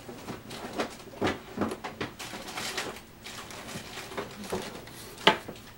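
Someone rummaging through paint tubes and art supplies: irregular small clicks, knocks and rustles, with one sharper knock near the end.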